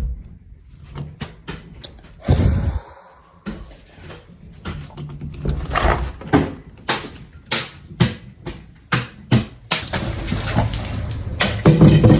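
Stored boxes and a boxed artificial Christmas tree being shifted around by hand: a string of knocks and bumps, with a heavier thump a couple of seconds in and continuous rustling and scraping near the end.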